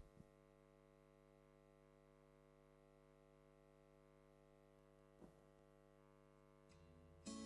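Near silence: a steady hum from the sound system, with one faint click about five seconds in. Near the end a strummed guitar chord comes in as music starts.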